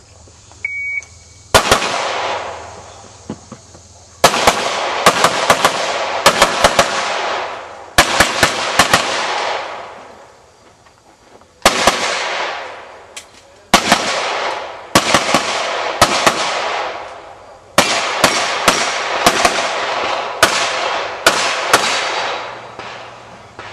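A shot timer's short start beep, then a practical-shooting course of fire: gunshots in fast strings separated by pauses of a second or two, each string trailing off in echo.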